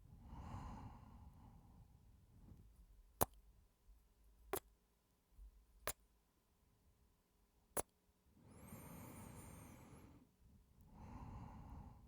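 Close-miked man's breathing and sighs, with four sharp kiss smacks spread across the middle, between breaths.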